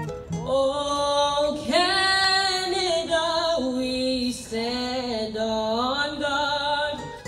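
A woman singing solo and unaccompanied, holding long notes with vibrato.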